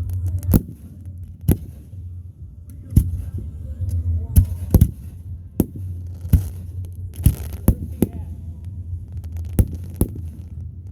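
Fireworks going off: a dozen or so sharp bangs at irregular intervals, some in quick pairs, over a steady low rumble.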